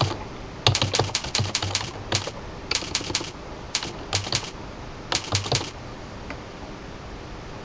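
Typing on a computer keyboard: quick runs of key clicks in several short bursts. The typing stops about two seconds before the end, leaving a faint steady hiss.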